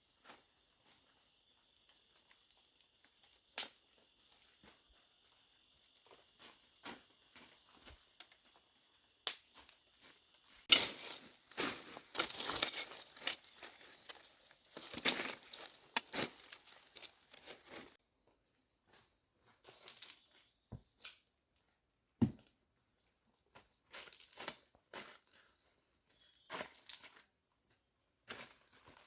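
Insects trilling steadily in a high, even drone, over intermittent rustling and sharp knocks, busiest in a burst of crinkling clatter around the middle.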